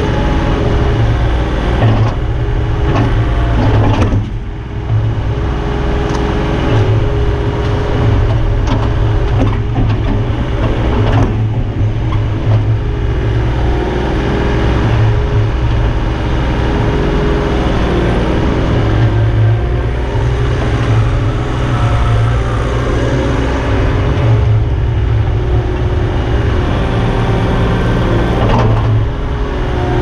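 Takeuchi TB035 mini excavator's diesel engine running steadily under hydraulic load as it digs and tracks, its note wavering with the work and easing off briefly about four seconds in.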